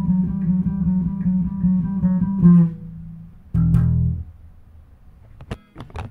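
Electric bass and guitar playing a run of repeated low notes, stopping about two and a half seconds in. One more low note rings for under a second, then a few sharp clicks near the end.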